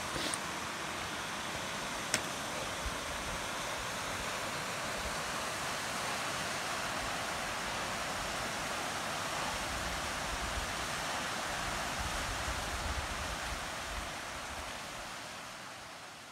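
Steady rushing outdoor noise, with a sharp click about two seconds in, fading out near the end.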